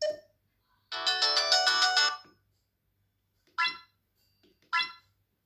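Samsung SGH-ZV10 mobile phone playing electronic alert tones through its small speaker. There is a brief blip, then a bright, fast melodic phrase of about a second, then two short single notes about a second apart.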